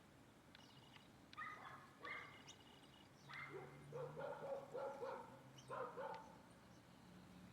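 A series of short, pitched animal calls, sparse at first and then coming quickly in a cluster for a few seconds before stopping.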